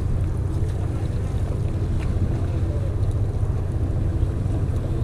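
Steady low rumble of a fishing boat's idling engine, with wind on the microphone.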